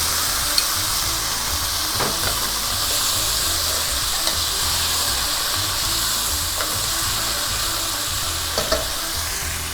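Frozen peas and carrots sizzling in a hot pan with garlic and white beans: a steady frying hiss, with a few light clicks.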